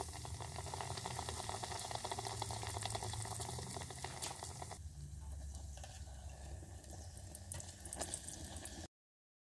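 Braided yeast-dough donuts deep-frying in hot oil: a dense, steady crackle and bubbling that eases about five seconds in. Near the end a few louder clicks come as a slotted steel spoon turns a donut, then the sound stops abruptly.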